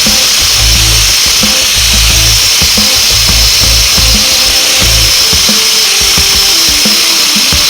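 A high-pitched power tool running steadily under background music with a pulsing bass line.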